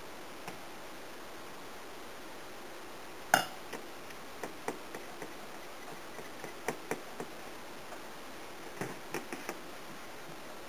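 Metal kitchenware being handled: one sharp clink with a brief ring about three seconds in, then a scatter of lighter taps and clicks from the stainless mixing bowl and springform pan as a peanut butter crust is scooped and pressed into the pan. A faint steady hiss lies underneath.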